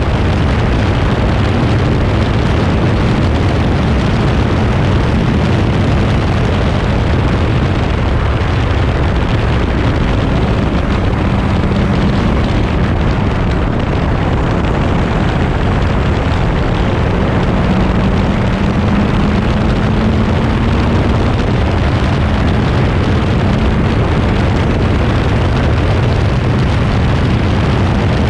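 Crossle 32F Formula Ford's 1600 cc Ford Kent four-cylinder engine running hard at racing speed, heard from the cockpit under heavy wind buffeting on the camera microphone. The engine note rises slowly for a few seconds past the middle.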